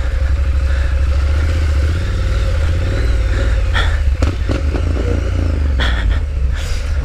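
Triumph Street Scrambler's parallel-twin engine running steadily under throttle on a muddy dirt trail, with a few brief knocks and clatters in the second half.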